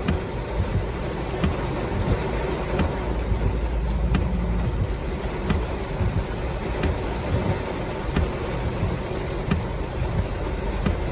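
Rain falling on a car, heard from inside the cabin: a steady hiss of rain over a low rumble, with a faint click repeating about every second and a half.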